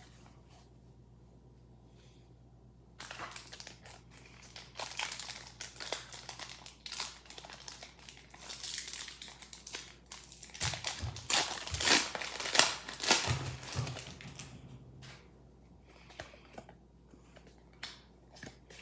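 A foil Pokémon Paradox Rift booster pack wrapper crinkling as it is handled and torn open, with the loudest rips about twelve to thirteen seconds in. It is quiet for the first three seconds, and near the end there are only light rustles as the cards are drawn out.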